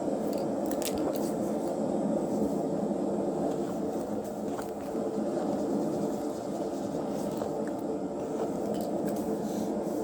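Steady background drone, like a running machine or engine heard from a room, with a few faint light clicks of handling.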